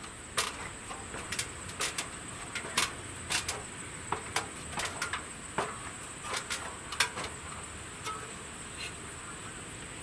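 Crimped sheet-metal vent cap being worked and pushed into the top of a stove pipe: a string of irregular sharp metallic clicks and knocks that thins out over the last couple of seconds. A steady high-pitched whine runs underneath.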